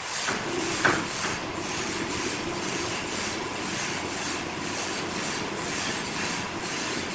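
Sawmill machinery running steadily, with a rhythmic swishing pulse about twice a second and a sharp metallic click about a second in.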